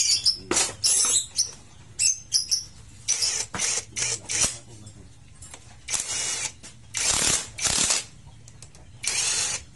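Cordless drill-driver with a socket running the clutch-cover bolts into a Honda CB150R engine, in about a dozen short trigger bursts.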